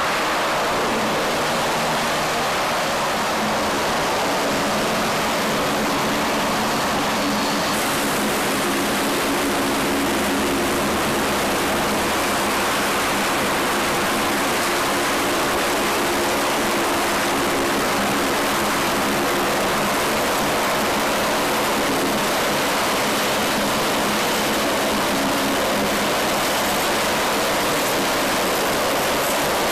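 LCAC hovercraft running, with its gas turbines, shrouded propellers and lift fans giving a steady loud rushing noise, mixed with air-cushion spray hissing off the water. The sound brightens about eight seconds in.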